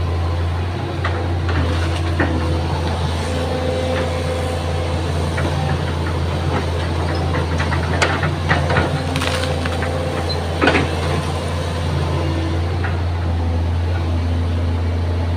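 Excavator diesel engine running steadily under load, with the pitch of the hydraulics shifting as it works. A few sharp knocks or cracks stand out around the middle, the loudest a little after halfway.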